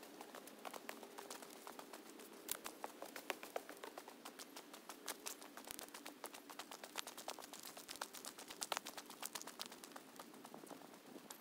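Footsteps crunching on a gravel and leaf-strewn path, a quick, irregular patter of small clicks.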